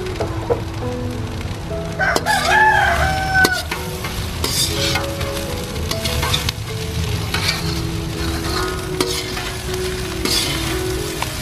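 A metal utensil scrapes and stirs quinoa in a hot steel wok, with the food sizzling as it fries. A rooster crows once, about two seconds in.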